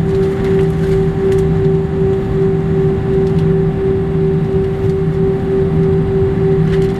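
Cabin noise of an Airbus A319 taxiing, heard from a seat over the wing: the jet engines' steady idle hum with a constant mid-pitched tone and a low drone that wavers in strength.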